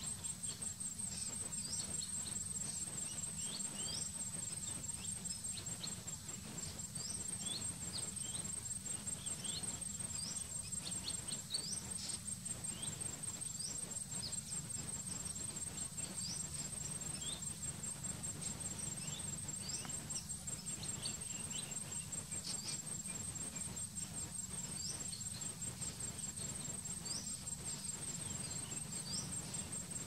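Steady, rapidly pulsing high-pitched insect trill, with short rising chirps from perched bee-eaters calling again and again.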